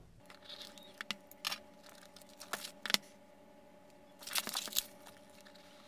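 Clear plastic shrink wrap being slit and peeled off a smartphone box: scattered sharp crackles, then a short burst of crinkling a little after four seconds in.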